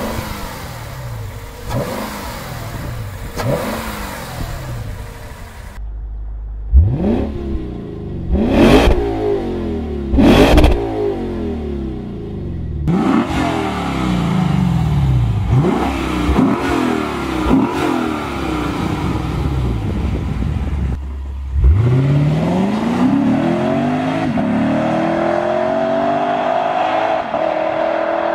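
Lexus 2UR-GSE 5.0-litre V8, with Yamaha-engineered cylinder heads, blipped again and again at standstill. From about six seconds in it is revved harder, with a few sharp cracks. About three-quarters through it goes to full-throttle acceleration, rising steadily in pitch as the car pulls away.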